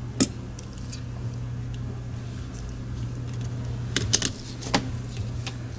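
Small plastic clicks and taps from a Logitech MX Anywhere 3 mouse's shell and circuit board being handled and fitted back together during reassembly: one sharp click just after the start and a quick cluster about four seconds in, over a steady low hum.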